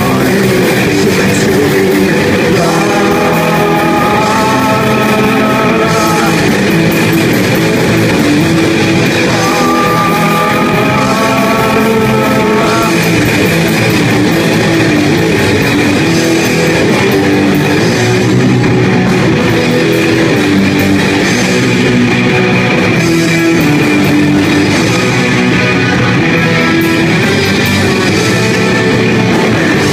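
A live rock band playing loud: electric guitars, bass and drums, with a voice holding long sung notes a few seconds in and again about ten seconds in.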